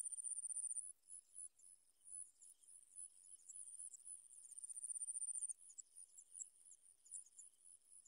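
Crickets or similar insects trilling: a faint, very high-pitched, rapidly pulsed trill that swells into two longer runs, about a second in and again around the middle, with scattered short chirps among it.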